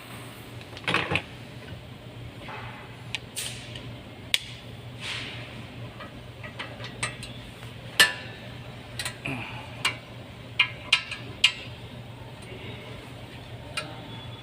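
Hand tools and brake parts clinking and knocking on metal, with scattered sharp clanks and a cluster of them a few seconds before the end, as a car's brake assembly is taken apart. A steady low hum runs underneath.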